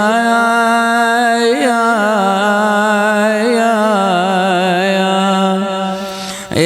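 A man's voice chanting a mournful Arabic elegy, holding out one long sung note with wavering ornaments in the middle. The note fades near the end, and a new phrase begins right after.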